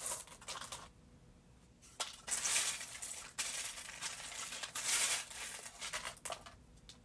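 A hand sifting through a cardboard box of loose buttons, the buttons rattling and clinking against each other in several bursts, with a lull about a second in.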